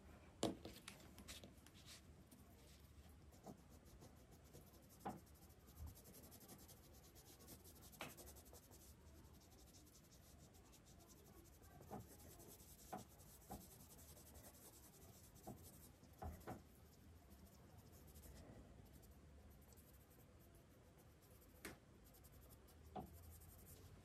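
Faint pencil work on paper: light scratching with scattered soft taps and clicks, about fifteen in all, as the pencil touches the paper and tools are handled.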